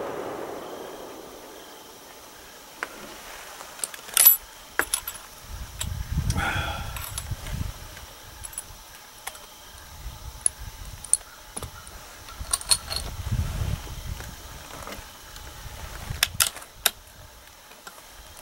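The echo of a rifle shot fades away over the first second or two. Then come scattered sharp metallic clicks and light rattles, several in quick pairs, from the rifle and shooting gear being handled.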